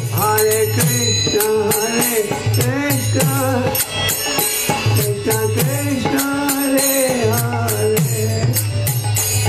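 Devotional chant sung by a single voice, the melody gliding up and down, with percussion keeping a steady beat of sharp clicks and a low drum.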